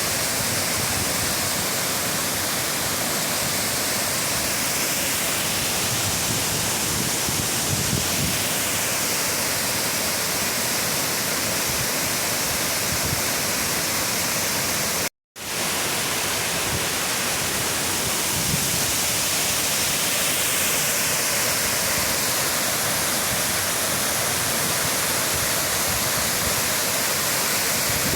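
Waterfall rushing: steady noise of falling water, cut off by a brief gap of silence about halfway through.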